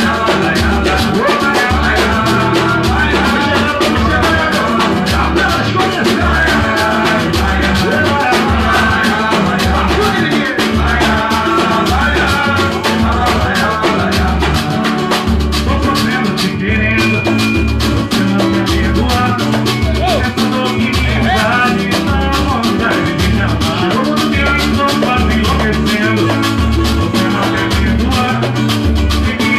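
Band music played loud, with drums and percussion keeping a steady, even beat under melodic parts.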